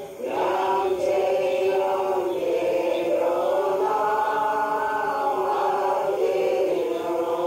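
A group of women singing a slow prayer song together in unison, with long held notes that glide slowly; there is a short breath pause right at the start.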